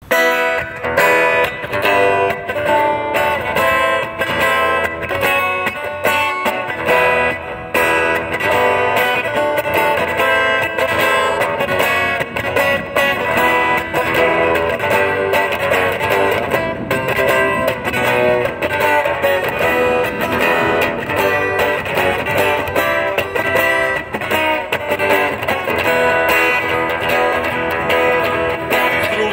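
Music: guitar-led instrumental introduction, plucked and strummed guitar with a steady beat.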